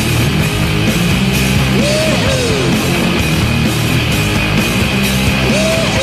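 Arena goal celebration: a doubled set of Hadley Bully air horns blaring together with a cheering crowd and loud rock music. A rising-then-falling whoop recurs about every four seconds.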